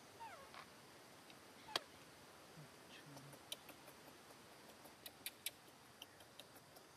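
Faint, short squeaks from a baby monkey, falling in pitch, near the start. Then a scatter of sharp clicks over an otherwise near-silent background.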